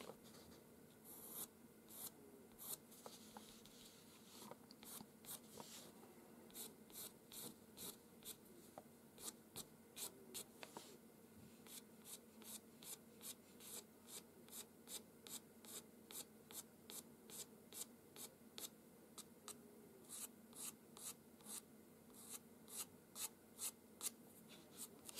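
Faint scratching of a white pastel pencil on pastel paper: short, quick flicked strokes drawing single hairs, about two a second.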